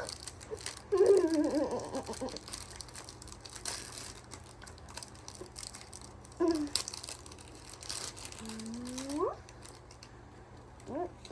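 Foil trading-card pack wrapper crinkling and cards being handled, in short rustles and clicks. Brief vocal sounds break in, with a single rising squeal near the end.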